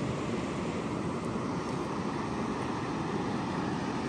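Glacier-fed mountain river rushing, a steady, even noise of running water.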